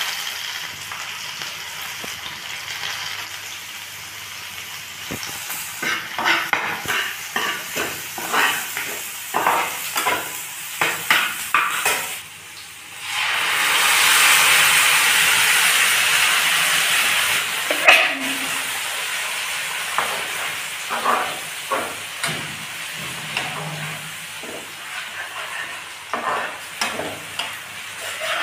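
Chopped onions frying in hot oil in a nonstick pan, with a spatula scraping and tapping against the pan. About 13 seconds in, tomato purée poured into the hot oil sets off a loud burst of sizzling that dies down over a few seconds. The spatula clicks and scrapes start again as the mixture is stirred.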